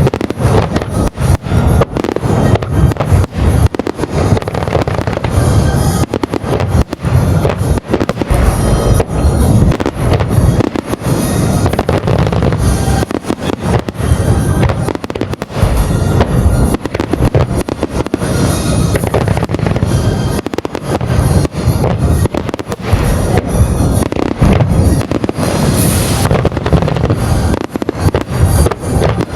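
Dense barrage of fireworks shells bursting one after another without pause, a music starmine, with music playing under the bangs.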